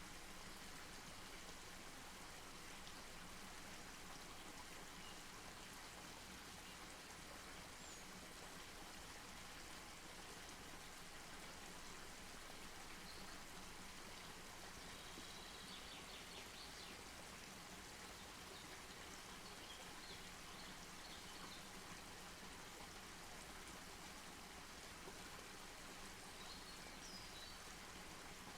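Wood campfire burning quietly: a soft steady hiss with faint crackles now and then.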